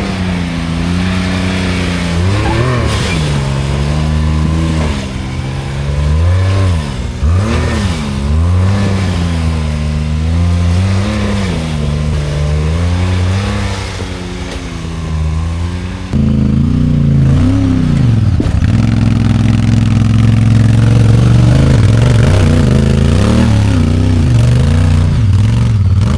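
Side-by-side UTV engine revving up and down again and again as it is driven, getting louder and holding higher revs from about two-thirds of the way through.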